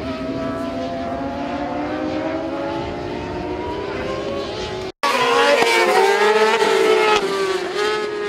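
Supersport racing motorcycle engines at high revs, their pitch climbing steadily as the bikes accelerate. After a brief dropout about five seconds in, the engine sound comes back louder, with several pitches shifting as the bikes pass close.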